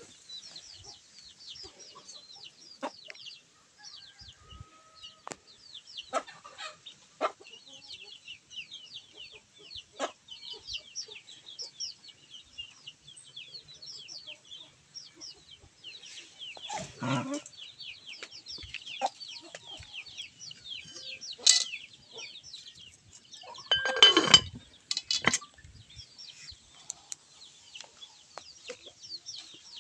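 Chickens clucking in a farmyard over a constant high-pitched chirping, with scattered sharp knocks and a louder call about three quarters of the way through.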